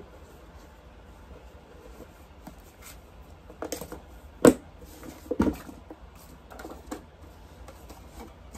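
Cardboard kit boxes and fabric being handled: faint rustling with a few scattered knocks and clicks, the loudest a sharp knock about halfway through.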